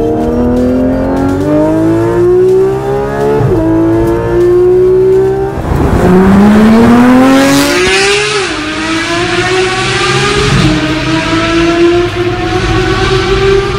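Porsche 991 GT3 RS's 4.0-litre naturally aspirated flat-six through a Fi valvetronic catback exhaust, accelerating hard with a high-pitched note: the pitch climbs, drops back at upshifts about three and a half and eight seconds in, and climbs again. A short loud rush of noise about eight seconds in as the car goes by.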